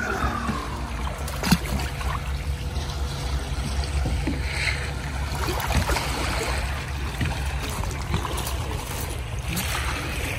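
Wind rumbling on the microphone over gently lapping shallow sea water, with a sharp click about one and a half seconds in and a few fainter knocks. A falling tone from the music before fades out in the first second.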